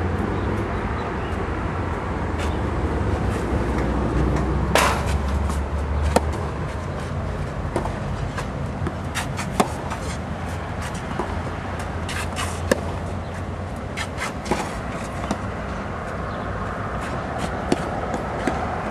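Tennis ball struck by racket in a rally, with ball bounces on clay: sharp pops every few seconds over a steady low rumble.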